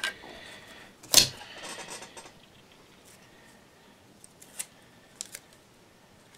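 Adhesive tape ripped off the roll in one short, sharp pull about a second in, followed by light handling of the tape strip with a few small clicks.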